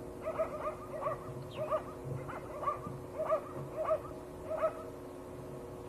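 A dog barking in a run of about a dozen short yaps, singly and in pairs, stopping about a second before the end. A steady low hum runs underneath.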